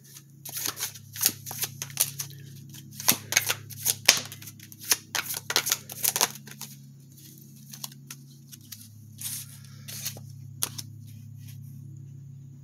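Tarot cards being shuffled and handled: a quick run of sharp card slaps and flicks for about six seconds, then a few scattered ones, over a steady low hum.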